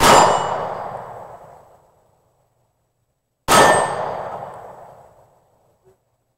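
Two Taurus .357 revolver shots about three and a half seconds apart, each with a steel target ringing out and fading over about two seconds.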